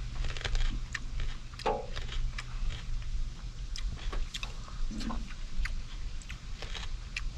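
Crunchy snack food being chewed: irregular crisp clicks and crunches over a steady low rumble.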